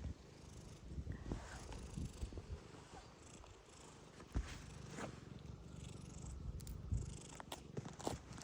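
A domestic cat purring close to the microphone, a low steady rumble, with a few short soft clicks over it.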